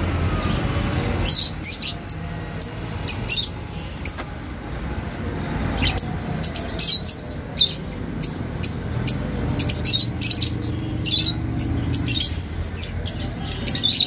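Caged lovebirds calling in short, sharp, high-pitched chirps, coming in quick clusters from about a second in, over a steady low background rumble.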